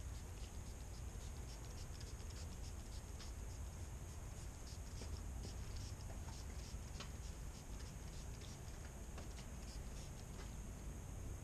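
Faint scratchy rubbing of a cloth wiping a ceramic waterless wash over car paint, with scattered light clicks and a low steady background rumble.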